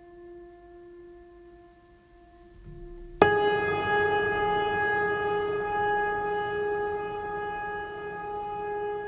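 Background music of sustained drone tones: a soft held tone, then about three seconds in a louder, higher held tone enters suddenly and rings on, slowly fading.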